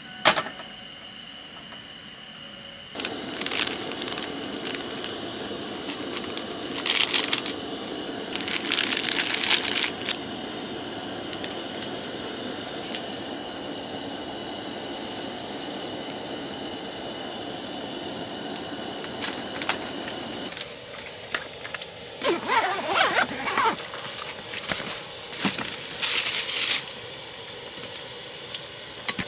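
A pot of fish-cake skewers in broth boiling on a camp stove: a steady rushing noise that stops abruptly about two-thirds of the way through. Short clattering and crackling bursts come now and then, and a thin steady high whine runs throughout.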